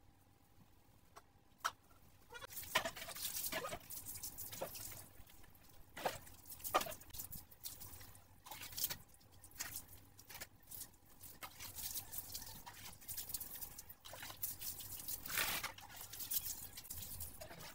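Water poured from a plastic mug over a wet dog's coat, splashing onto a concrete floor in repeated irregular pours and splashes, starting about two seconds in.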